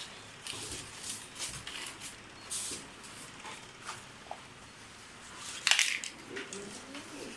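Styrofoam packaging being handled: a string of short rubbing and scraping noises, with a louder scrape near the end.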